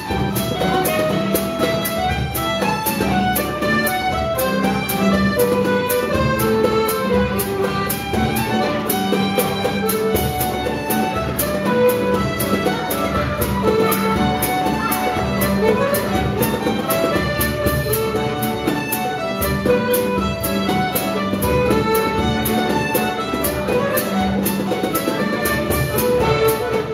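Scottish country dance music for a reel: a band plays a quick, lively tune with a held low note underneath and a steady beat.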